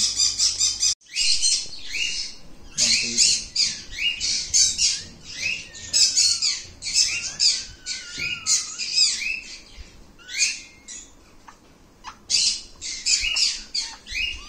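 High-pitched animal chirping in quick runs of short squeaks, several a second, broken by brief pauses, with a few thin gliding whines between them.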